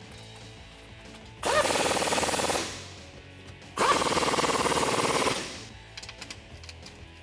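A cordless power tool with a 13 mm socket runs twice, once for about a second and a half and then for nearly two seconds, with a rapid rattle. It is driving down the bolts that fasten a stainless side step bar to its bracket.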